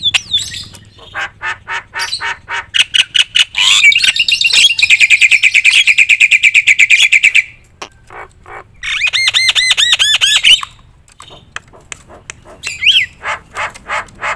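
Javan myna singing loudly in full song. A rapid string of sharp clicking notes leads into a long fast rattle, then comes a quick run of repeated looping whistles and a few scattered calls near the end.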